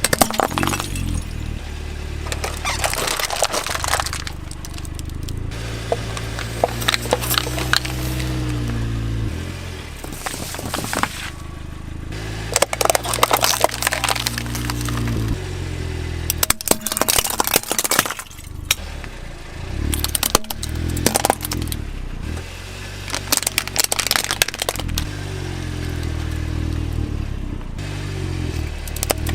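Plastic toy cars and a toy excavator clattering and knocking against one another in repeated bursts, over a low droning hum that shifts in pitch.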